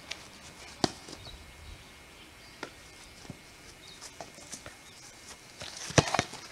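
A few sharp knocks and taps: a loud one about a second in, lighter ones in the middle, and a quick cluster near the end.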